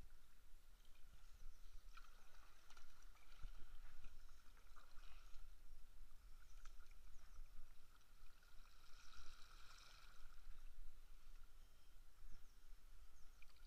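Kayak paddle strokes: the blades dipping in and out of calm water, with faint, irregular splashes and drips.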